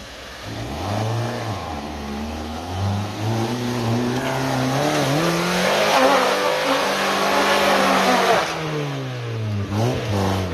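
Land Rover Freelander's engine revving hard under load as it climbs a muddy slope with its wheels spinning, the pitch rising and falling several times. It is loudest about six to eight seconds in, with a hiss of spraying mud, then the revs drop near the end.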